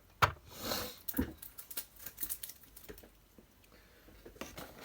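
Hands handling the toy car's plastic packaging: a sharp click, a short rustle, a knock about a second in, then a run of small light clicks and taps.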